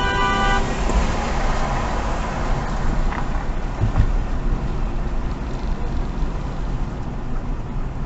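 A train horn's chord of several notes, held from before, cuts off about half a second in. Then steady road and engine noise heard inside the moving car, with a single thump about four seconds in.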